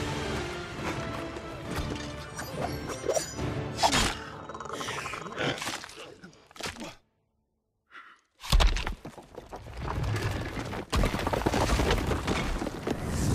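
Orchestral film score mixed with fight sound effects: blows and sharp impacts. After a moment of total silence about seven seconds in comes a heavy crash, then the crashing and rumbling of a stone tower breaking up and falling.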